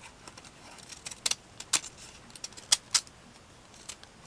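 Scattered light clicks and ticks of paper and craft supplies being handled on a tabletop, irregular and sharp, a handful of louder ones in the middle.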